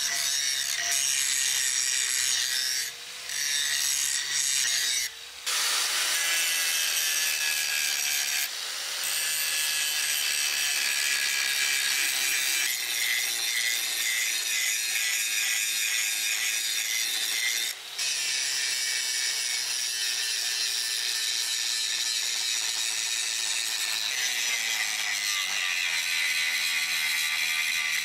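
Electric angle grinder with an abrasive disc grinding the steel of a forged kukri blade, a steady high hiss of metal being ground, broken off briefly a few times.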